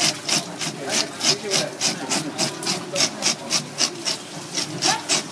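A wooden-backed fish scaler scraping the scales off a large golden pomfret's skin in quick, even rasping strokes, a little over three a second.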